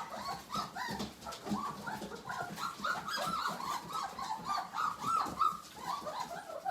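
Three-week-old German shepherd–husky mix puppies whimpering and squealing: many short, high cries overlapping one another.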